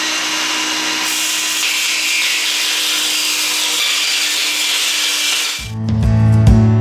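Battery-powered DeWalt circular saw with a fine-tooth carbide finishing blade cutting through a multi-layer polycarbonate panel: a steady motor whine under dense cutting noise. It stops near the end, and acoustic guitar music comes in.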